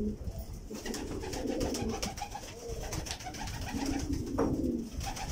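Domestic pigeons cooing: a low, repeated coo.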